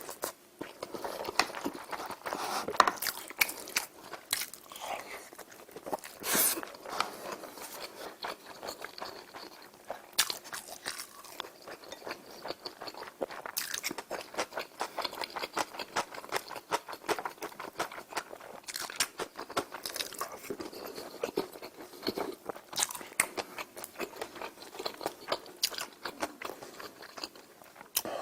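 A person eating close to the microphone: steady chewing with frequent crisp crunches and wet mouth clicks at an irregular pace.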